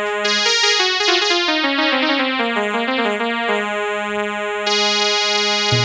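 Electronic keyboard music: a synthesizer melody stepping downward over a held low note.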